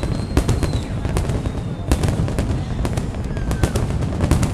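Fireworks display: many sharp, irregular bangs and crackles over a continuous low rumble, with a thin high whistle held through the first second.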